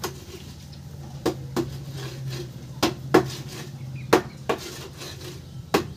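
Hand-operated steel hollow-block mold being worked on concrete mix: a series of irregular sharp metallic knocks, several in close pairs, over a faint steady low hum.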